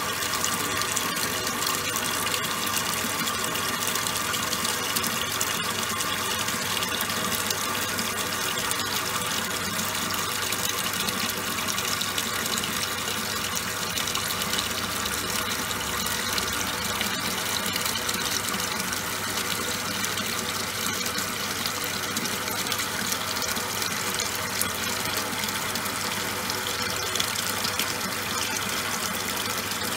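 Top-loading washing machine washing towels: a steady rush of water in the tub with a faint low hum, unchanging throughout.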